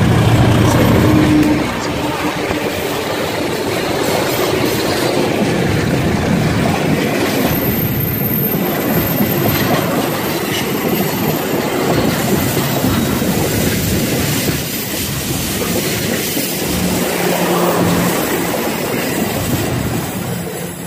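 Diesel-electric locomotive hauling the Cibatu local passenger train passes close by: its engine is loud for the first second or so, then the coaches' wheels rattle over the rails as the train rolls past, easing off near the end as the last coach goes by.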